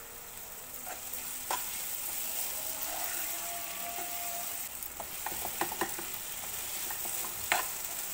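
Chopped onion, tomato and green chillies sizzling in oil in a non-stick kadai as a metal spoon stirs them, the freshly added tomato being fried into the onion masala. The spoon scrapes and taps against the pan several times over the steady sizzle, with a run of taps about five seconds in and a sharper knock near the end.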